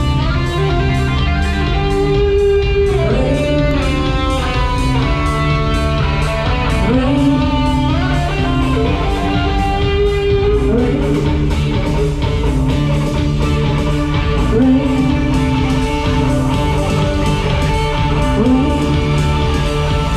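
Music led by electric guitar over a steady beat, with notes sliding up and down in pitch.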